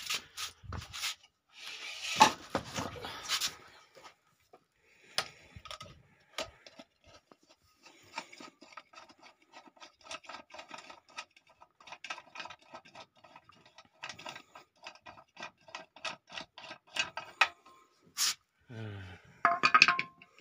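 Handling noises from an ODII chainsaw's plastic air filter cover as it is worked loose and lifted off: rubbing and scraping, a long run of quick light clicks, and a sharp click near the end.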